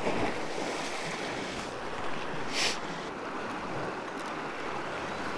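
Lake water lapping against a kayak, with wind on the microphone, and a short hiss about two and a half seconds in.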